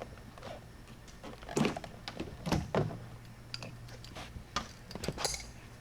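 A run of sharp knocks and clicks, heaviest at about one and a half and two and a half seconds in, as a flat-blade screwdriver pries at the Miata's shifter cover stuck down with sealant. A steady low hum sits underneath.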